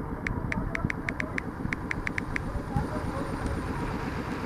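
Diesel-electric CC 201 locomotive running steadily as it approaches with its train. A quick run of about a dozen short high pips sounds over the first couple of seconds.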